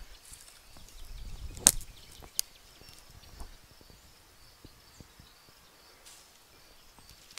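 Dry wood snapping: two sharp cracks about a second and a half in, under a second apart, then faint scattered ticks and crackles. Rustling of movement on the twig-and-needle forest floor comes before the cracks.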